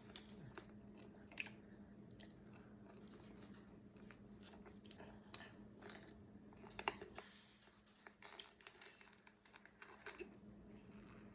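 Faint, irregular crunches and clicks of someone chewing a snack, over a low steady hum.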